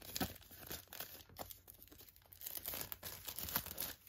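Clear plastic shrink-wrap crinkling and tearing as it is peeled off a Blu-ray box by hand, in faint, irregular crackles.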